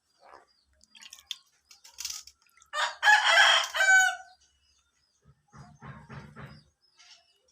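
A loud crow like a rooster's, lasting a little over a second, about three seconds in. It is followed a couple of seconds later by a run of short, low, clucking calls.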